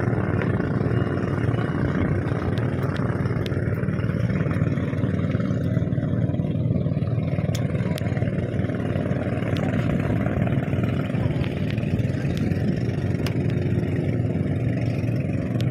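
Boat engine running steadily, a continuous low drone, as the raft moves across the water.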